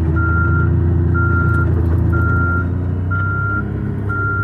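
Vehicle backup alarm beeping about once a second, a single steady tone, over the steady running of the vehicle's engine while it reverses through deep snow.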